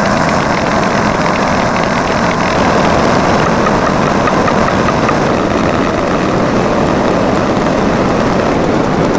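A loud, steady, engine-like running sound.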